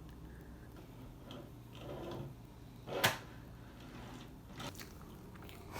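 Quiet room with small handling noises and one sharp knock about three seconds in.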